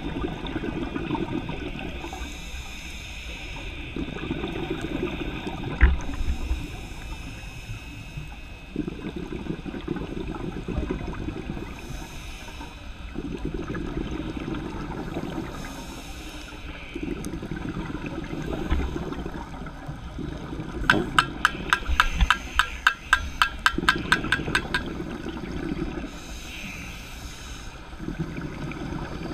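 Scuba diver breathing through a regulator underwater: a hiss on each inhale and a bubbling rush of exhaled air about every four seconds. Past the middle, a quick run of clicks, about five a second, lasting about four seconds.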